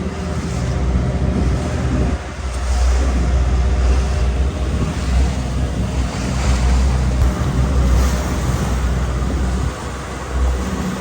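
Wind buffeting the microphone on a moving boat, over the steady drone of the boat's engine and water rushing past the hull.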